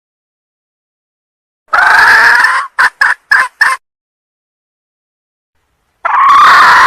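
Red junglefowl hen calling, a hen call used as a lure for wild cocks. A loud drawn-out squawk about two seconds in is followed by four short clipped notes, then another long squawk starts near the end, each call starting and stopping abruptly against dead silence.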